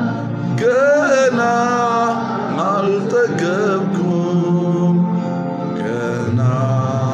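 Ethiopian gospel worship song (mezmur): a man singing over steady held instrumental chords.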